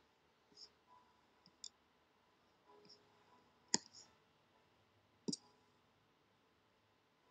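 About half a dozen sharp clicks from a computer's pointing device, irregularly spaced, the loudest a little under four seconds in and another strong one past five seconds.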